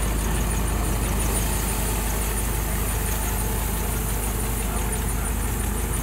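Tractor-powered wheat thresher running steadily: an engine's low, even drone with a fast, regular ticking over it.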